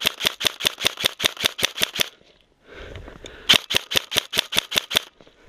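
Airsoft rifle firing in full-auto bursts, sharp shots at about ten a second: one burst cuts off about two seconds in, and a second shorter burst follows about a second later.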